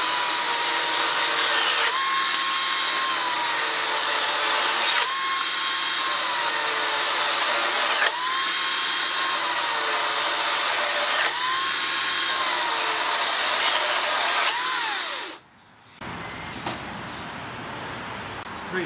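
Makita 36V (twin 18V battery) cordless chainsaw cutting through a rough-sawn treated timber post at full throttle, the chain ripping through the wood. The motor's whine sags in pitch as the chain bites and recovers again, over about five stretches, then winds down and stops about 15 seconds in.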